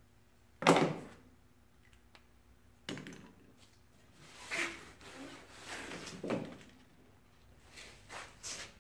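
Cut pine boards handled on a wooden saw table: a sharp wooden thunk about a second in, then scattered knocks and short scraping slides as the pieces are picked up, moved and set down.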